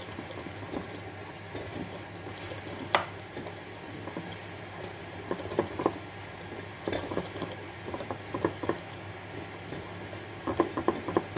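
Wire hand whisk beating wet crepe batter in a glass bowl, with a sharp knock about three seconds in and then quick runs of light clicks as the whisk strikes the glass, growing busier near the end.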